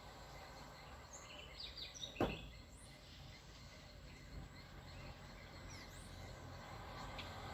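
Faint outdoor background with scattered short, high bird chirps. About two seconds in, one brief louder sound sweeps sharply downward in pitch.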